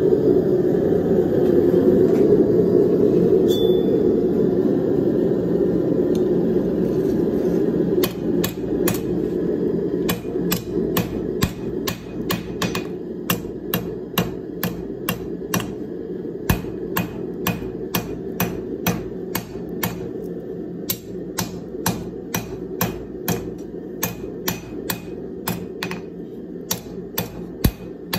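Hand hammer blows on a red-hot steel bar on an anvil, forging a knife blade. The blows start about eight seconds in and come about two a second, over a steady low rushing noise that is loudest before the hammering begins.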